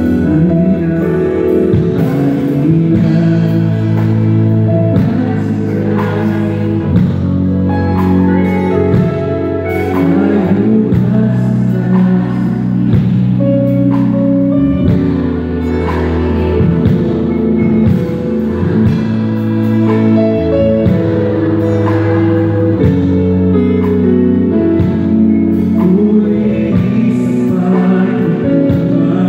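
Live band playing a worship song with singing, electric guitar, electric bass, keyboard and drums, amplified through stage speakers.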